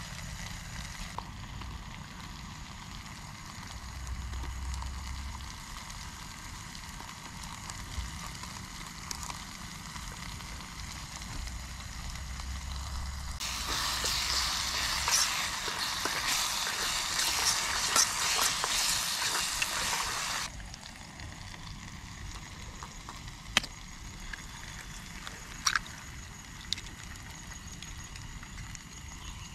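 Curry sizzling in a pot on a portable butane gas stove, a steady hiss that grows louder for several seconds in the middle. Near the end a few sharp taps sound as eggs are cracked into the pot.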